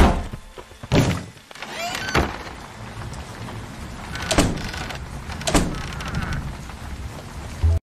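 Cartoon soundtrack: a door slams shut, then steady rain with several more dull thuds, ending in an abrupt cut to silence near the end.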